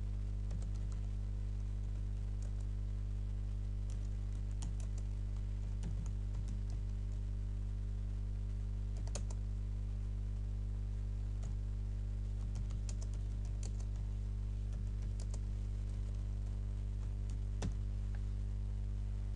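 Computer keyboard typing: irregular keystrokes in short runs with pauses between them, over a steady low electrical hum.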